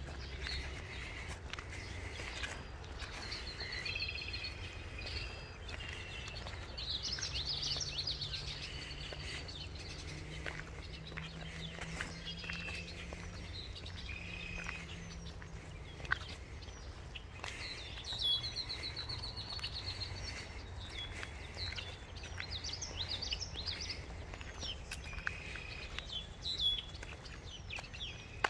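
Several songbirds singing and calling, with repeated high trills, over a low steady rumble. A few short sharp ticks stand out, about halfway through and near the end.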